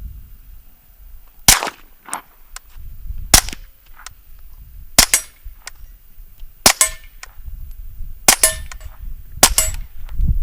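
Kriss Vector SDP 9mm pistol firing six single shots through an AAC Tyrant 9 suppressor, about one every one and a half seconds, with fainter sharp knocks after some of them.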